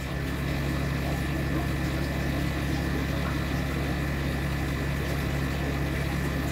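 Steady low electric-motor hum with a faint high whine above it, running evenly without change.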